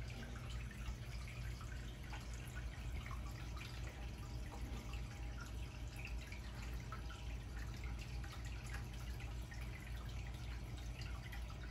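Aquarium water bubbling and trickling from the tank's sponge filters: many small, irregular drips and pops over a steady low hum.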